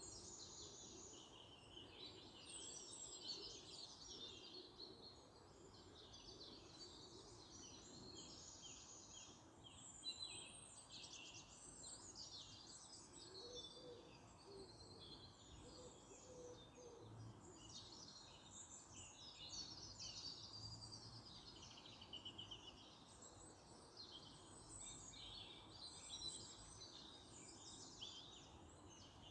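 Several small songbirds chirping and singing at once, faint and continuous, over a low steady background rumble.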